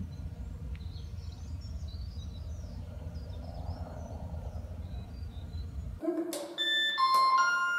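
Outdoor low rumble with faint birds chirping; then, near the end, a doorbell button pressed and an electronic door chime playing a short melody of steady notes at different pitches.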